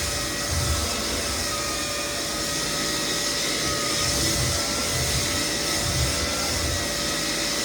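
Lagler Flip belt floor sander running steadily with a motor and fan whine, sanding down cupped white oak flooring to level it.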